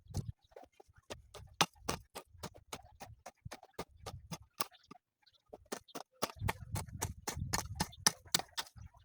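Rapid, irregular clicking and knocking, several strikes a second, over dull low thuds, with a short pause about five seconds in.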